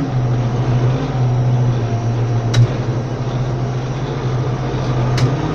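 Tractor engine running steadily under load with a low drone; its pitch drops a little at the start and climbs again near the end. Two sharp clicks, about halfway through and near the end.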